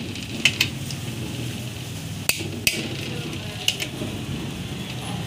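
Click-type torque wrench giving sharp metallic clicks in three quick pairs while it is handled and set by hand, over a steady low background hum.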